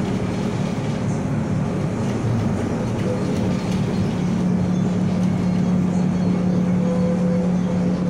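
Tatra T3 tram running along the track, heard from inside the passenger cabin: a steady rumble of wheels on rails with a low, steady hum that fades out just after the start and comes back about two and a half seconds in.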